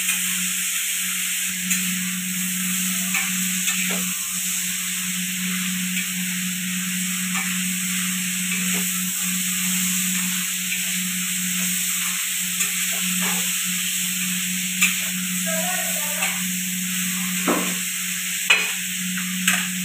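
Onions, tomatoes and garlic sizzling in a shallow metal tawa over a gas burner, with a metal spatula scraping and tapping the pan now and then as the pieces are stirred and turned. A steady low hum runs underneath.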